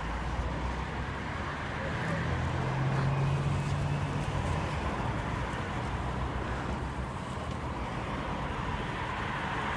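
Road traffic on a city street: a steady low engine rumble, with a car passing close by and loudest about two to four seconds in.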